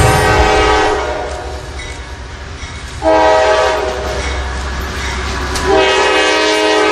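Train horn sounding in long held blasts over the low rumble of a passing train. The horn fades out about a second in and comes back suddenly about three seconds in, shifting pitch near the end.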